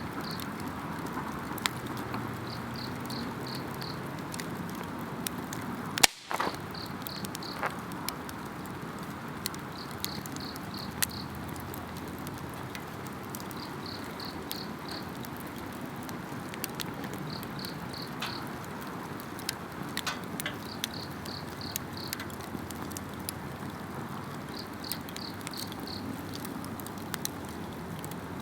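Wood campfire crackling with scattered sharp pops and a steady low rush, and one loud crack about six seconds in. Over it an insect chirps in short high bursts of four or five pulses, about every two seconds.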